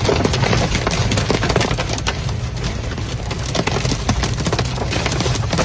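Hail pelting a hard surface in a dense, irregular clatter of sharp hits, over a steady low rumble of storm wind.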